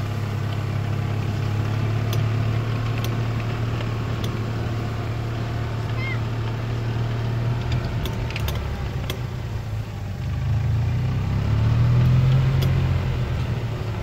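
Small utility vehicle's engine running steadily as it drives across a rough field, with scattered rattles and clicks. The engine gets louder about ten to twelve seconds in.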